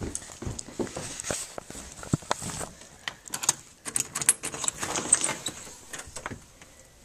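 Handling noise from a handheld camera being carried along: rustling with irregular small clicks and knocks, busiest in the middle.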